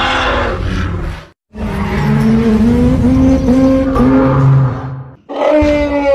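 Behemoth, the mammoth-like kaiju, roaring in loud pitched calls: one ends about a second in, a long wavering call runs for about four seconds, and another with a falling pitch starts near the end.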